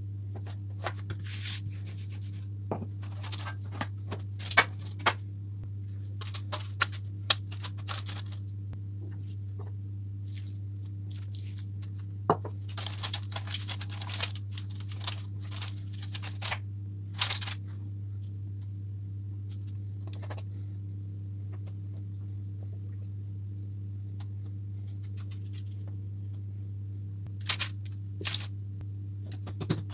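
Scattered scrapes, taps and rustles of food preparation on a worktop: a wooden rolling pin on dough and a spatula spreading mashed potato filling over dough on baking paper, with the busiest scraping in the middle. A steady low hum runs underneath throughout.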